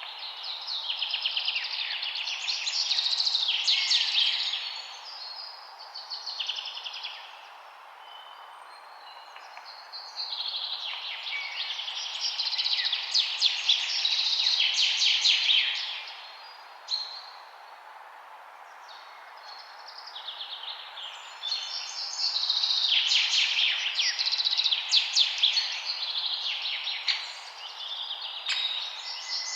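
Songbirds singing in long, rapid twittering phrases, three stretches of several seconds each, over a steady background hiss.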